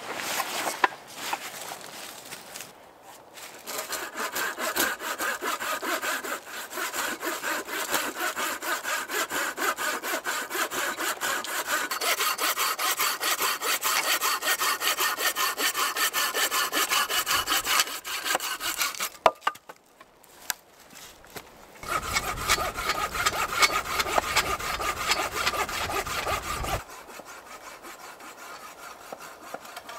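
Hand saw cutting through wooden poles with steady, regular back-and-forth strokes: a long bout, a short pause, then a shorter second bout.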